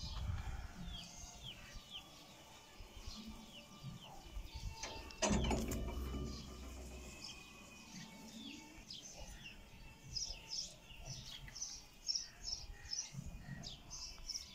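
Small birds chirping repeatedly, short falling notes, busiest near the end. A sudden thump about five seconds in, followed by a low rumble for a couple of seconds, is the loudest sound.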